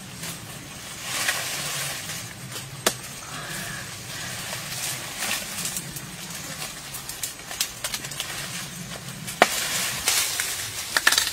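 Papaya leaves rustling and brushing, with a few sharp snaps and knocks, as ripe papayas are picked from the tree by hand.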